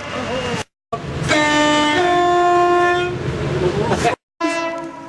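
British train's two-tone horn: a lower note, then a higher note held for about a second, over the rumble of the train. The sound cuts out abruptly twice, and after the second cut a fainter horn note fades away.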